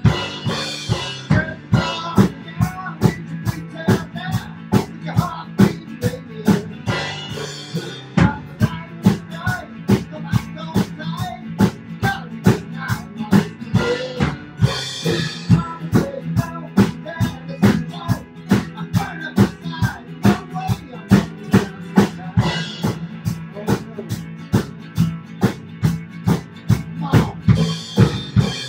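Live rock band playing an instrumental passage: a drum kit keeps a steady, driving beat with bass drum and snare strikes, under guitar and bass.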